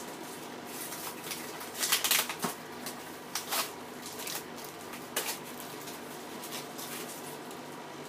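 Cardboard-and-plastic toy box being handled: scattered rustles and scrapes of the packaging, the loudest about two seconds in.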